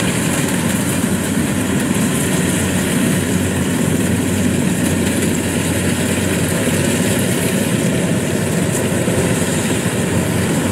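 Rice combine harvester running steadily while it cuts and threshes rice: a continuous diesel engine and machinery hum with no change in pace.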